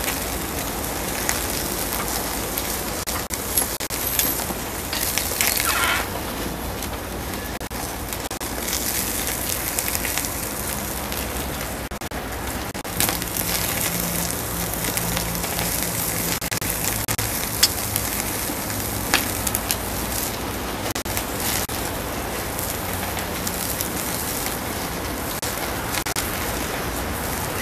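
Open wood fire crackling and hissing under meat on a grill grate, with frequent small snaps and a few sharper pops.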